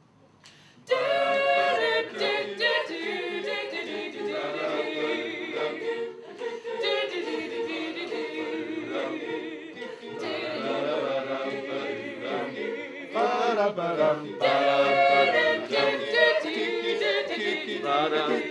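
Community choir singing a cappella, several voices together with no instruments, starting abruptly about a second in after near silence.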